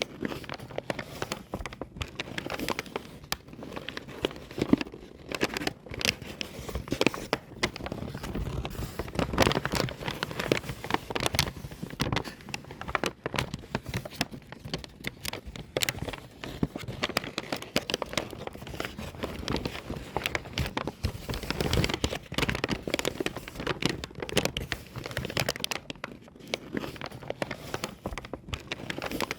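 Paper bag being crumpled and crinkled by hand: a dense, irregular run of crackles and rustles with frequent sharp snaps.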